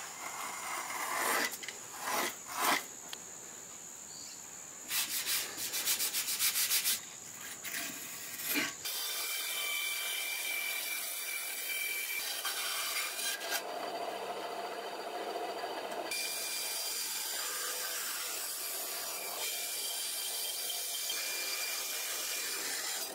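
A utility knife scraping and scoring through a paper template on a wooden bench, with a quick run of clicks in the middle. About nine seconds in the sound changes to a benchtop bandsaw running steadily as its blade cuts through a block of timber.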